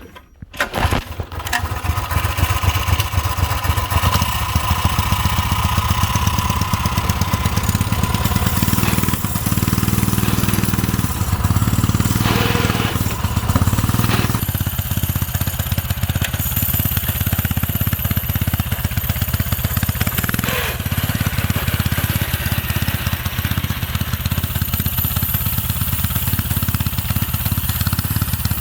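A small gasoline engine starts about half a second in and keeps running with a quick, even firing beat, its speed changing a few times near the middle.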